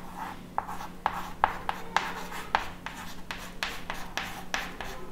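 Chalk writing on a chalkboard: a quick, irregular run of short taps and scrapes, about four a second, as letters are written.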